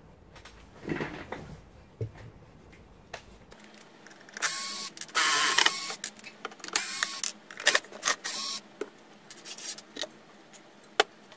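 Cordless drill/driver backing the woofer's mounting screws out of a bookshelf speaker's front baffle in several short bursts, between about four and nine seconds in. A single sharp click comes near the end.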